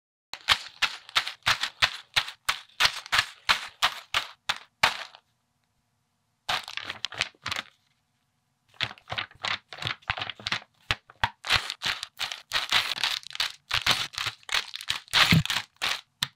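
Plastic parts bags and paper sheets being handled and torn open, a dense crinkling crackle in two long runs with a short patch between and quiet gaps around five and eight seconds in.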